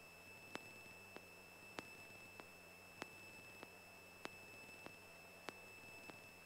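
Near silence on an aircraft intercom audio feed, carrying only faint electrical noise: a steady high-pitched whine with regular sharp ticks about every 0.6 seconds, alternating louder and softer.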